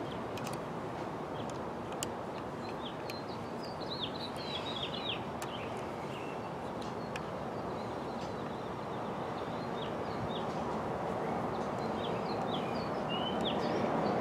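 A small bird chirping in quick, short high notes, in two spells a few seconds apart, over a steady outdoor background hiss, with a few faint clicks.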